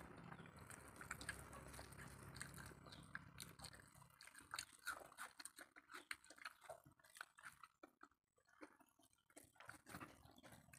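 Faint close-up eating sounds of rice and egg curry eaten by hand: soft chewing and the wet squish of fingers mixing curry-soaked rice, heard as many small irregular clicks. A low steady hum underneath drops away about four seconds in.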